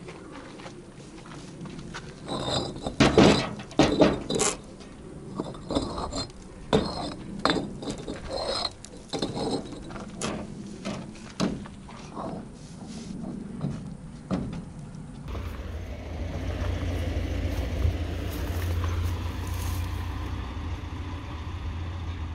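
Concrete paving tiles being lifted off a stacked pallet, knocking and clinking against each other in an irregular run of hard clacks. About fifteen seconds in, this gives way to a steady low engine rumble.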